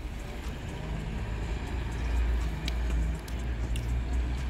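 Low, steady rumble of road traffic, a vehicle engine running nearby, with two faint clicks a little over halfway through.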